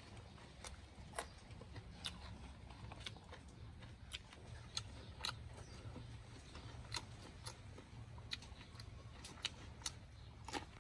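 Faint, irregular crunching and clicking of someone chewing and biting into cooked pig's head meat and skin, over a low steady rumble.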